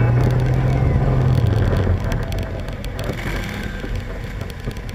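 Side-by-side UTV engine revving up as the vehicle moves off along a rough dirt trail, its low note easing off about two seconds in, with rattling and clicking from the ride throughout.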